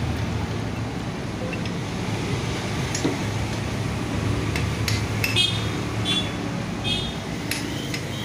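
Metal hand tools clinking as a socket wrench is worked on a nut under a motorcycle engine, with several sharp ringing clinks in the second half, over a steady low hum.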